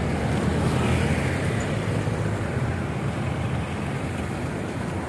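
Motor vehicle engine running steadily while on the move, with wind rushing over the microphone.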